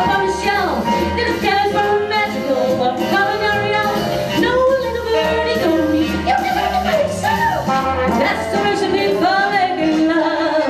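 A woman singing with a live band accompanying her, her voice gliding and bending over the band's sustained chords.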